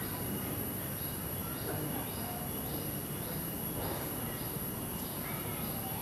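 Steady low hum of a giant honey bee colony clustered in a curtain over its open comb. A faint high chirp repeats about twice a second above it.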